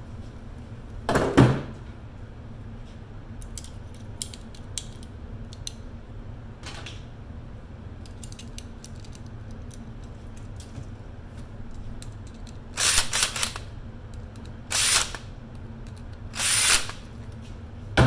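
Cordless drill-driver running in about five short bursts of about half a second each, most of them in the second half, with faint scattered clicks of small metal parts between them.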